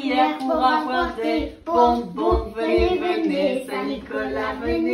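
A young girl singing a Christmas song unaccompanied, her single voice holding and stepping between notes.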